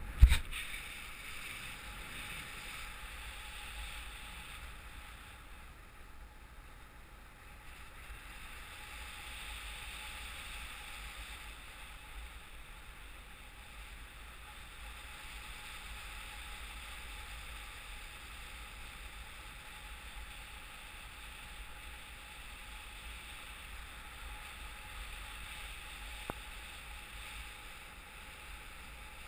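Steady wind rushing over the microphone of a paraglider pilot's action camera in flight. A sharp knock sounds right at the start, as the camera is handled.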